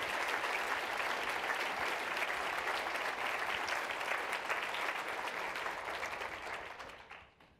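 Audience applauding: many hands clapping together, holding steady and then dying away about seven seconds in.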